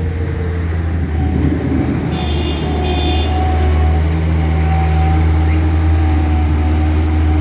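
A heavy vehicle's engine running steadily at a low hum, with two short high beeps about two seconds in.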